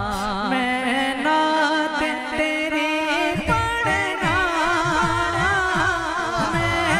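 A man singing a naat (devotional song in praise of the Prophet) into a microphone, his voice drawn out and wavering on long ornamented notes. From about halfway through, a steady low beat pulses beneath the voice about twice a second.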